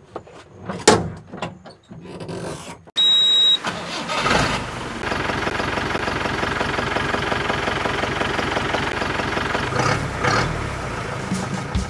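Mahindra jeep engine cranked and starting about four seconds in, then idling steadily with a brief rev near the end. Before it come a few knocks and a short high beep.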